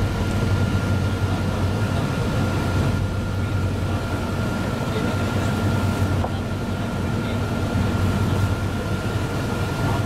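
Steady engine and road drone inside a moving minibus cabin, with a thin, steady high whine over it.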